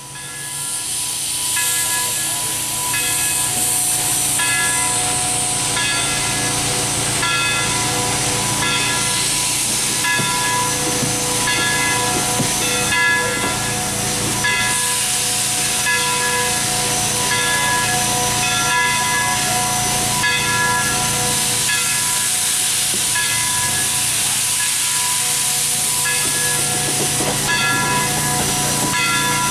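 CNJ 113, an 0-6-0 steam switcher locomotive, backing slowly under steam: a loud hiss of steam from around the cylinders, strongest in the first few seconds, with a regular pulsing chuff about twice a second and a few steady ringing tones above it.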